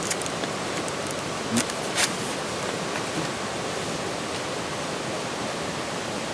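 Steady, even rushing noise, with two short clicks about a second and a half and two seconds in.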